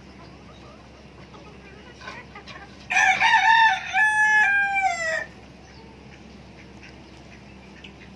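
Rooster crowing once, a loud cock-a-doodle-doo of about two seconds whose last drawn-out note falls in pitch. A few faint short clucks come just before it.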